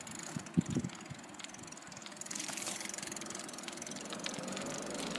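A car's engine approaching, growing louder from about two seconds in. There are a few soft knocks in the first second.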